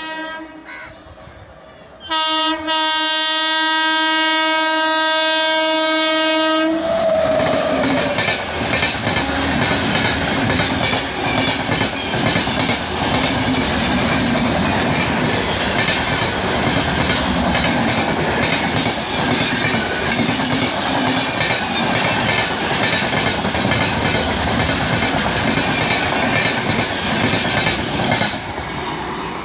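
Electric locomotive horn: a WAP-7's horn sounding, with a short blast cut off just after the start and then a long blast from about two seconds in that drops in pitch as the locomotive passes at speed. The LHB coaches then rush past with a steady clickety-clack of wheels over rail joints, fading as the last coach goes by near the end.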